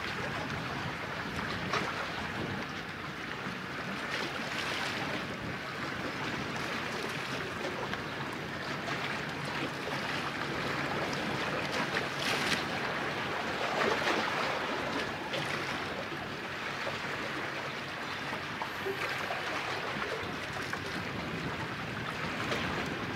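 Sea waves washing and breaking on the shore, a steady rushing wash that swells briefly now and then, with wind on the microphone.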